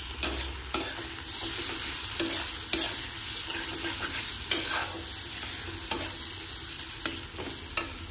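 Chopped tomatoes and masala sizzling in hot oil in a kadhai, stirred with a flat steel spatula that scrapes the pan and knocks against it in several sharp clicks.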